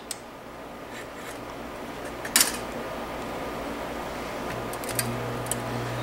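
Homemade microwave-oven-transformer spot welder: a sharp click about two and a half seconds in and a couple of lighter clicks near the end, then the transformer hums steadily from about five seconds in as welding current heats the copper electrode tip against the sheet metal.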